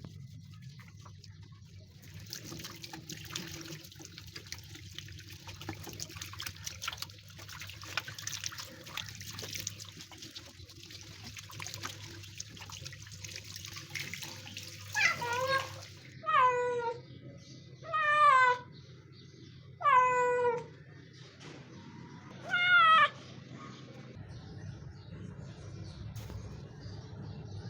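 Running water hisses for about fourteen seconds, then a kitten meows loudly five times, each meow falling in pitch.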